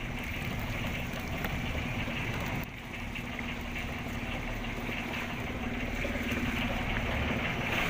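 Outrigger fishing boat's engine running steadily at an even hum.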